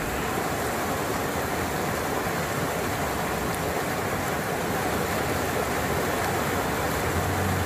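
Steady rushing of water from heavy rain and floodwater running on a flooded street, an even hiss with no breaks.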